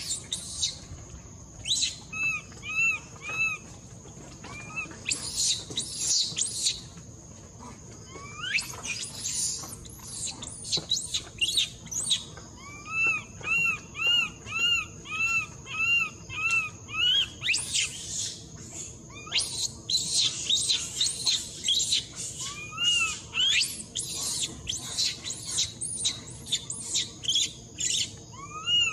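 Baby macaque screaming and crying over and over: runs of short, arched, chirp-like cries alternate with harsher, noisier screams. These are an infant's distress calls for its mother.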